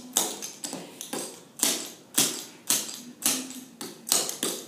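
Clogging taps on a dancer's shoes striking the dance floor as she steps through a dance sequence. There are about two sharp clicks a second, with lighter taps in between.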